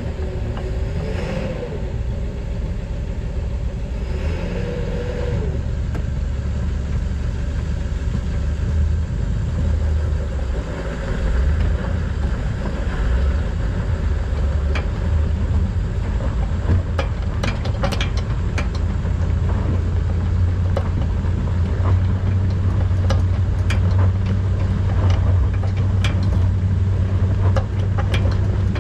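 Truck engine running steadily with a deep low rumble as it holds tension on a rope line in a tree removal. In the second half, a scatter of sharp clicks or snaps rises over the engine.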